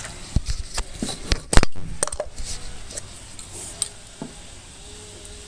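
A few clicks and knocks of objects being handled and set down on a workbench, the loudest about a second and a half in, then quieter rustling handling.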